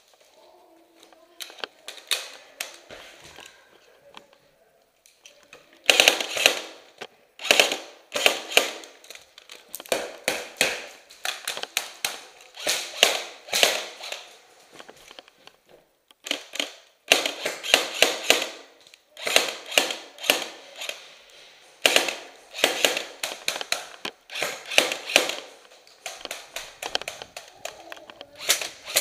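Airsoft electric rifle, a G&P M4A1 AEG, firing repeated bursts of rapid clicking shots, about a dozen bursts over some twenty seconds with short pauses between them.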